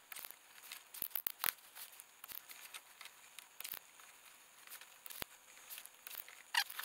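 Automatic wire stripper working on car-radio wiring: scattered sharp clicks of its jaws snapping, with a quick cluster about a second in, over light crinkling of wires and plastic handled by hand.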